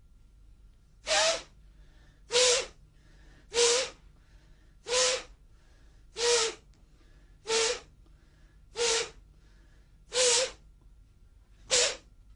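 A martial artist's forceful breaths, nine short, sharp puffs about 1.3 seconds apart, each delivered with a punch: the combat breathing method of Emei slapping qigong.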